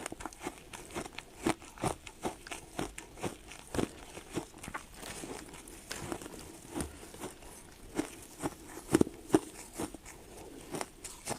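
Ice being bitten and crunched between the teeth close to the microphone: an irregular run of sharp cracks and crunches, several a second, with two of the loudest bites about nine seconds in.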